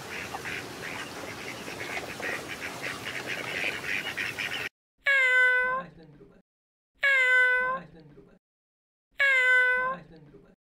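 A crowd of birds calling over one another, cut off abruptly. Then a single animal cry, steady in pitch and dropping lower at its tail, comes three times about two seconds apart, each one the same.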